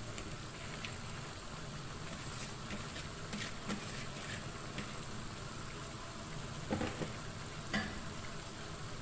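Cabbage and carrots sizzling steadily in a wok as rice noodles (bihon) are tipped in from a bowl, with a few sharp knocks, the loudest about seven and eight seconds in.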